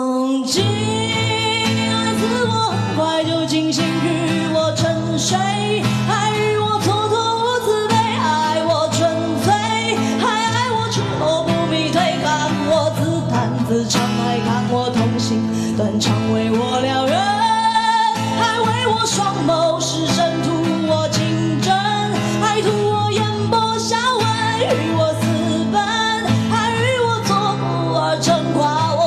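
A woman singing a pop ballad to her own guitar accompaniment, the guitar struck in a steady rhythm under the voice.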